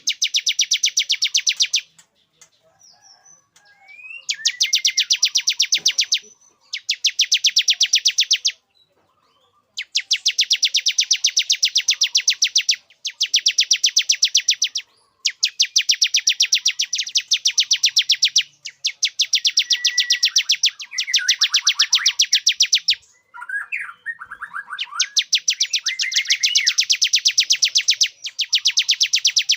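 Male bar-winged prinia (ciblek) song used as a lure call: long, very fast, even trills lasting two to four seconds each, repeated again and again with short pauses, and short rising chirps between some of them.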